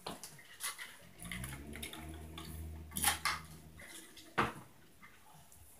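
Knocks and clatter from an upstairs neighbour's flat, scattered sharp knocks with the loudest about three seconds in and another near four and a half seconds, over a low steady hum in the middle of the stretch.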